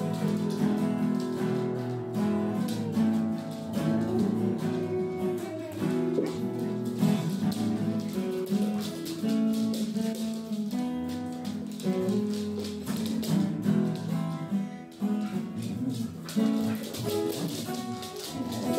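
Guitar music with plucked and strummed notes.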